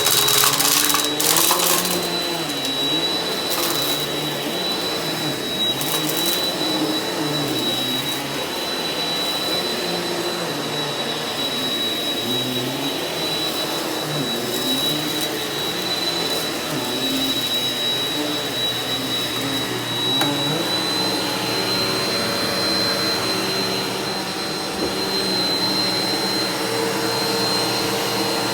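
Eureka NEU180B Power Speed upright vacuum running over carpet. It makes a steady high whine over a motor hum whose pitch rises and falls as it is pushed back and forth, with a few sharp crackles in the first couple of seconds as debris is picked up.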